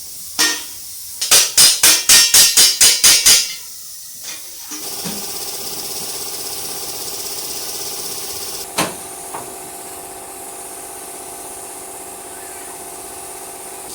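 Hammering: one blow, then a quick even run of about ten hammer blows, then one more blow later on. A steady machine hum runs underneath after the run of blows.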